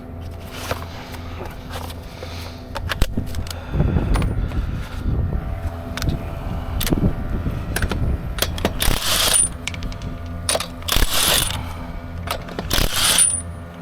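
Metal clicks, clinks and clatter of hand tools and wheel hardware being handled during a car tire change, with a few short rushing bursts in the second half, over a steady low hum.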